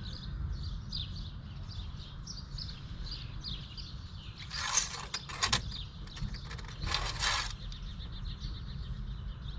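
Engine oil dipstick sliding in its tube as it is drawn out to check the level: two short scraping rustles, about two seconds apart, over a low outdoor rumble.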